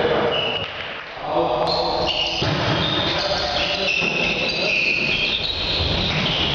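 Indoor volleyball being played in a gym: the ball being hit, sneakers squeaking on the court floor and players' voices, echoing in the hall.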